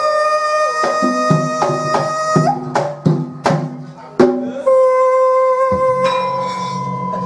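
Javanese gamelan music. A female singer holds long high notes over sharp kendang drum strokes, with low ringing tones underneath. A cluster of drum strokes falls in the middle.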